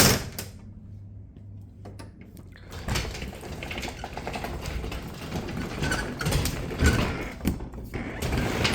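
A sharp clack, then a Crawford sectional garage door being moved by hand: its rollers rumble and rattle along the steel track for about six seconds, with small knocks.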